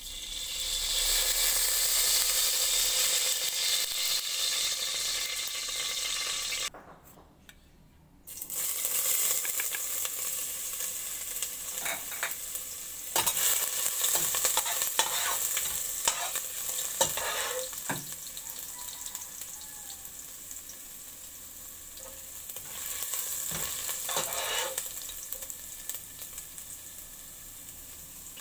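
Slivered garlic frying in oil in a stainless steel pot: a steady sizzle, with scrapes and taps of a utensil stirring it. The sizzle drops out for about a second and a half some seven seconds in, then comes back.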